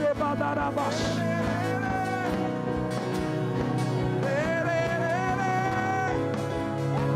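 Slow live worship music: sustained low chords under a long, gently gliding lead melody line.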